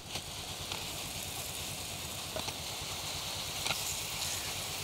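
Wheat grain pouring in a steady stream from the bottom outlet of a metal storage bin onto a cloth: a continuous hiss with a few faint ticks, over a low steady rumble.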